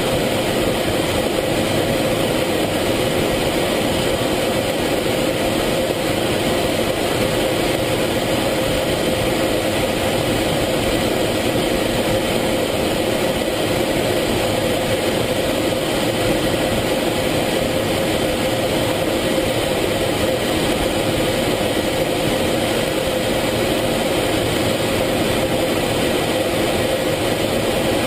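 F-16 fighter jet in flight heard from inside the cockpit: a steady engine-and-airflow drone with a constant hum, unchanging throughout.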